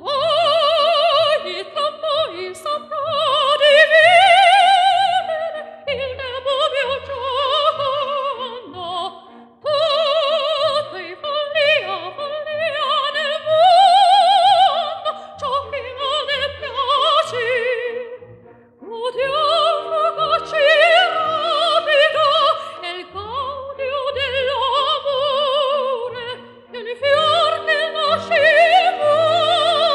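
Opera music: a singer with a wide vibrato sings long phrases over an orchestra.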